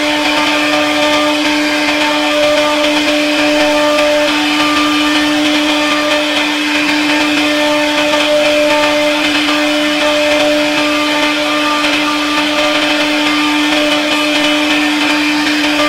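CNC router spindle running as its bit carves a pattern into wood: a steady high whine over the continuous hiss of the cut.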